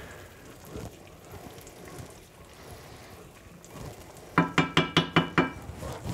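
Faint stirring and a light sizzle from a pan of melted butter and honey on the stove, then, about four seconds in, a quick run of about six ringing clinks of a utensil against cookware.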